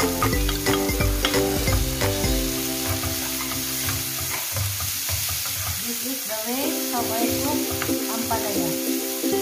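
Onions and tomatoes sizzling in a hot nonstick frying pan while a wooden spatula stirs and scrapes them, with small clicks and scrapes along the way. Soft background music plays underneath and pauses briefly past the middle.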